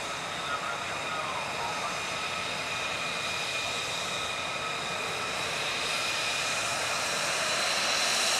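F-35C's single F135 turbofan engine whining at low power as the jet taxis, several steady high tones over a rushing hiss, growing slowly louder toward the end.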